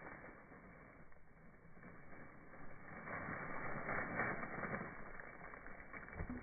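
A heap of dark rock fragments crackling as it breaks apart, with many small ticks and clicks as pieces split and shift. The crackling grows busier and louder about three seconds in.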